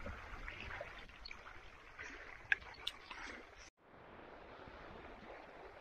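Faint background noise of small waves lapping at a reservoir shoreline, with a couple of light ticks; the sound drops out for a moment about two-thirds of the way through.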